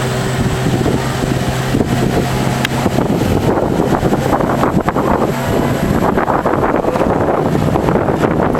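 A 15-horsepower boat engine pushing a small longboat along a river, its steady hum under wind on the microphone and rushing water. From about three seconds in, the wind and water noise grows and covers the engine.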